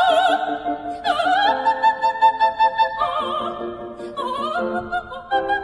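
Background music in an operatic style: a high voice holding long notes of about a second each, with strong vibrato, over accompaniment.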